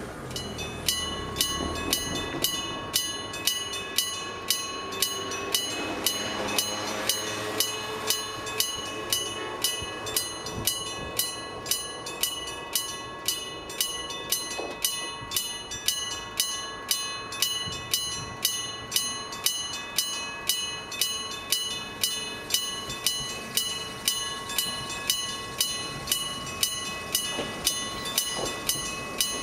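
Electric-bell level crossing warning bell, a mechanical striker hitting a metal gong about twice a second with a ringing after each stroke. About six seconds in, an electric train runs through the crossing.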